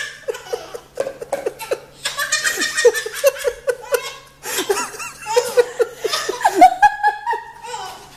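Baby belly-laughing hard, in several bouts of rapid, rhythmic, high-pitched laughter with short pauses for breath between them.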